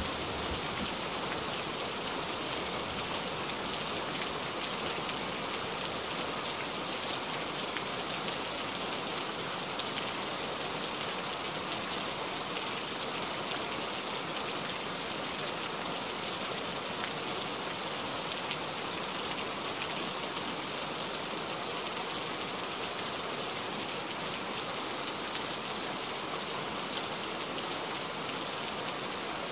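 Steady rain falling, an even hiss that holds level throughout.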